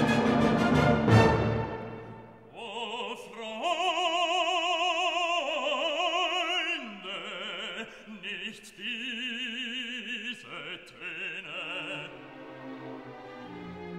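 Background music: a dense orchestral passage with brass fades away in the first two seconds. Then an operatic voice sings long notes with strong vibrato over the orchestra, before the music drops to a softer orchestral passage near the end.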